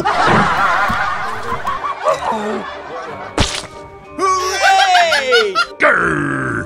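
Laughter over background music, with a sharp click about three and a half seconds in and a falling tone a little later.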